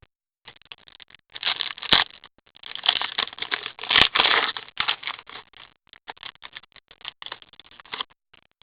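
Rustling and scraping of trading cards and their pack wrapper being handled and sorted through by hand, in uneven bursts, with a couple of sharp ticks.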